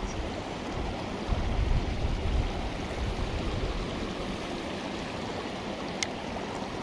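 Steady rush of a small creek's flowing water, with a low rumble on the microphone during the first half and a single faint click near the end.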